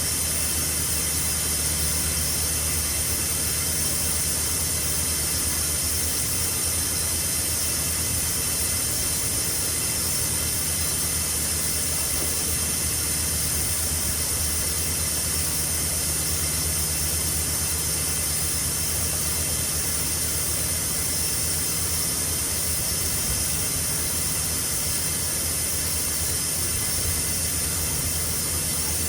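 Steady machine noise: an even hiss with a low hum beneath it, unchanging throughout.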